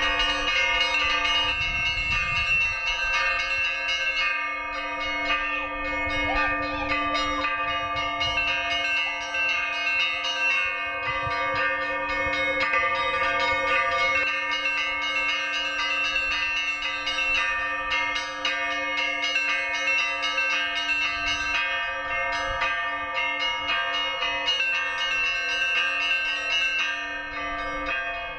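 Russian Orthodox church bells rung by a bell ringer: a peal of many bells struck in quick succession, their tones overlapping and ringing on, over a steady deeper bell tone that fades near the end.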